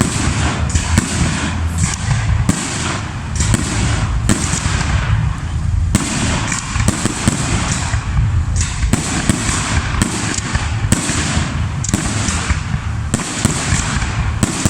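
Fireworks display: an irregular run of bangs, sometimes several a second, each trailing off, over a steady low rumble.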